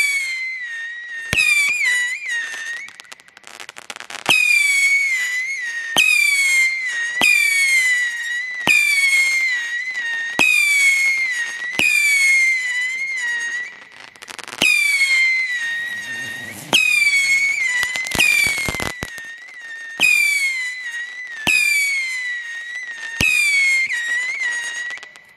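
A multi-shot firework cake firing a steady series of whistling shots about every second and a half: each is a pop followed by a shrill whistle that dips slightly in pitch. About two-thirds of the way through comes a quick burst of rapid crackling.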